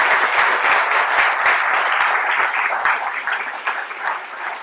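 Audience applauding: dense clapping that thins out and grows quieter over the last second or so.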